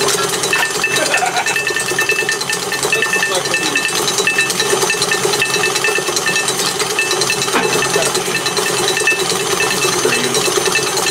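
KitchenAid stand mixer running with its beater churning a bowlful of pencils in the steel bowl: a steady motor hum under dense, continuous rattling and clattering, with a short ring repeating about twice a second.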